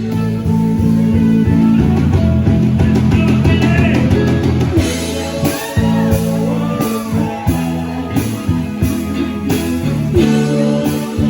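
Music with guitar and drums, with a steady beat in the second half.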